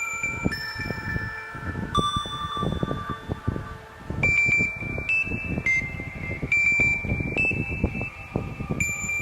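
A Nokia E51 ringtone playing from the phone's speaker: a chiming melody of clear held notes, stepping to a new pitch every half second to a second.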